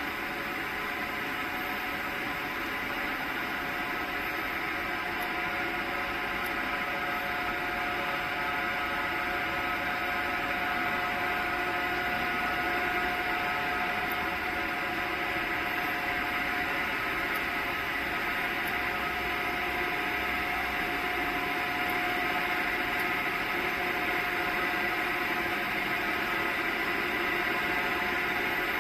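Steady machine hum of factory equipment: a constant hiss with several steady whining tones, unchanging throughout, with no cycling or impacts.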